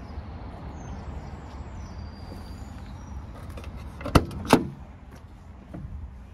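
Two sharp metallic clacks about a third of a second apart, about four seconds in, as the DAF LF truck's cab door is unlatched and swung open. A steady low rumble runs under them.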